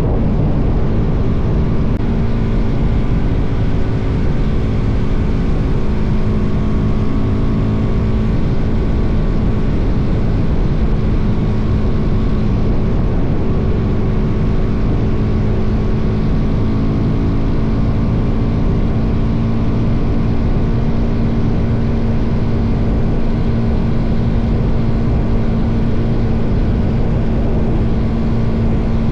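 Suzuki DR-Z400's single-cylinder four-stroke engine running at a steady cruising speed on the road, with heavy wind rumble on the microphone.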